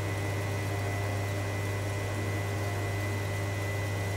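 Dynamic balancing machine spinning a Mercedes-Benz V8 crankshaft on its belt drive: a steady low machine hum with a faint, constant high whine.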